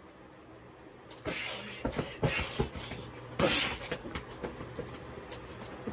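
Scuffling on a bed: soft thumps and rustling of bedding, with a sharp hissy rush about three and a half seconds in.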